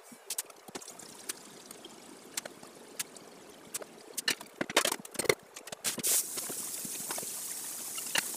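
Meat and bones boiling in a large stainless steel pan of water, bubbling and popping, with a metal ladle clinking against the pan as the scum is skimmed, loudest about five seconds in. From about six seconds in a steadier, louder hiss of the boil takes over.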